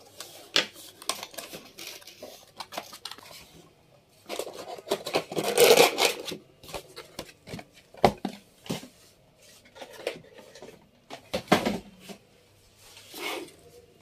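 Hands unboxing a CPU stock cooler: the cardboard box and its insert rustle and scrape, with scattered clicks and a few sharp knocks as parts are set on the wooden bench. The loudest part is a rustle from about four to six and a half seconds in, and single knocks come about eight and eleven and a half seconds in.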